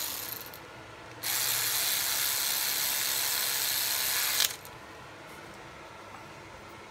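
Powered ratchet running for about three seconds, starting about a second in, as it drives in the fastener on the boost hose connection.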